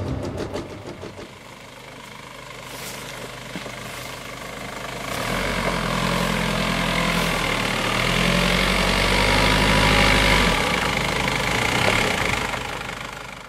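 Vehicle engine running under a steady hiss of noise, both growing louder about five seconds in, with the low engine hum dropping away shortly before the end.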